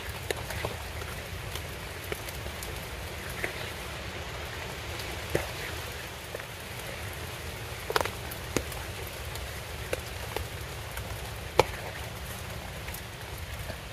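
Rain falling steadily, with scattered louder drops tapping at irregular moments; two of the taps stand out, one about eight seconds in and one near the end.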